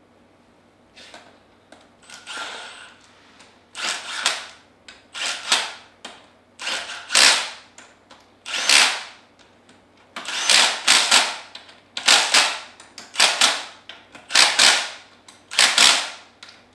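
Cordless impact driver running down the head bolts of a reassembled diaphragm pump, in a series of short hammering bursts about one a second. The bursts are faint at first and loud from about four seconds in.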